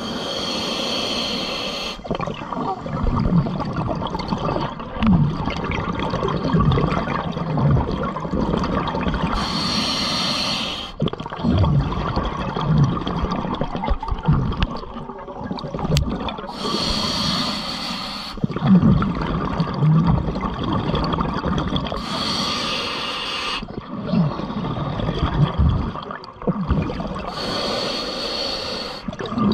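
Scuba diver breathing underwater through a regulator: five hissing breaths, several seconds apart, with bubbles gurgling between them.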